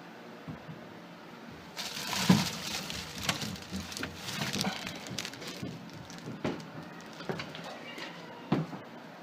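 Rustling with scattered light knocks, starting about two seconds in: things being handled and shifted about.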